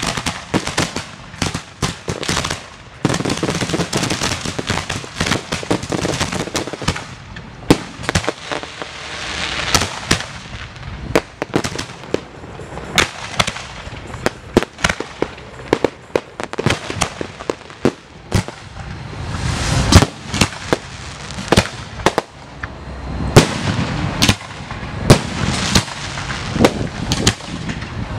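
Display fireworks shells launching from mortar racks at close range: a rapid, irregular barrage of sharp bangs with hiss between them, densest and loudest in the second half.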